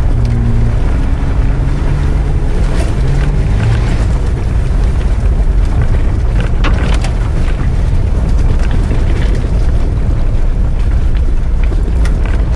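Off-road 4x4's engine running steadily at low revs, heard from inside the cab while it crawls along a rutted muddy track, with a few knocks and rattles over the bumps.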